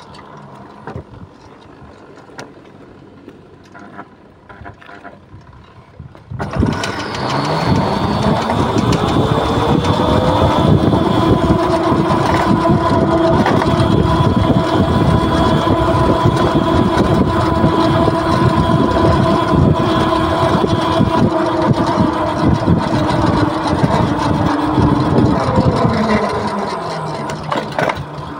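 QS138 70H electric motor on a PMC controller whining as the bike rides. It is quiet at first. About six seconds in it pulls away, and the whine rises in pitch as it accelerates, holds steady, then falls near the end as it slows. A loud rush of wind and road noise runs under it while moving.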